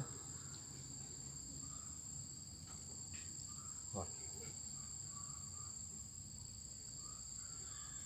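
Insects shrilling in the surrounding vegetation: a steady, unbroken high-pitched drone made of two even tones.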